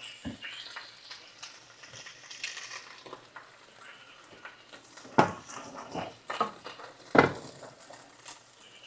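Food frying quietly in skillets, a faint steady sizzle, with a few sharp knocks of a utensil against the pans. The loudest knocks come about five and seven seconds in.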